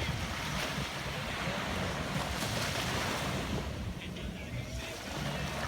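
Ocean waves breaking and washing in, swelling to a peak about two to three seconds in and then easing off, over a low rumble of wind on the microphone.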